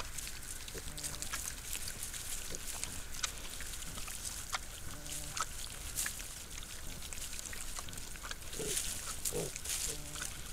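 Wild boar grunting: short low grunts a few times, with small clicks and scuffs from piglets rooting about on the ground.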